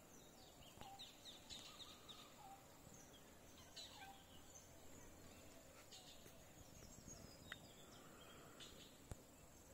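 Faint forest ambience: scattered distant bird calls and chirps over a steady thin high-pitched hum, with one sharp click near the end.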